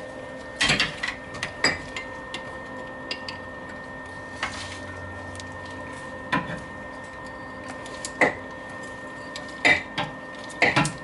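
Scattered metallic clinks and knocks of a wrench working a nut welded onto a broken head bolt, as the bolt turns out of the head. A steady faint hum runs underneath.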